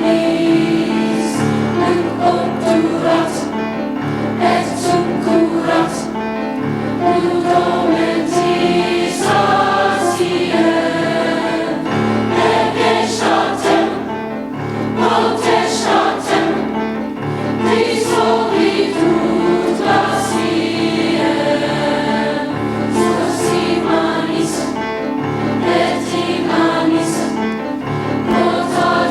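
High school choir singing a choral piece in German, sustained voices in several parts.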